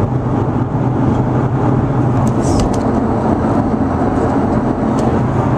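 Steady road and engine drone of a car driving at speed, heard from inside the cabin, with a strong low hum.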